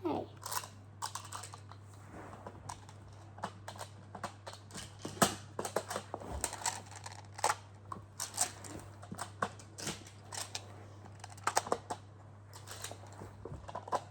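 Plastic magnetic building tiles clicking and clacking as they are handled and snapped together, in quick irregular clicks throughout.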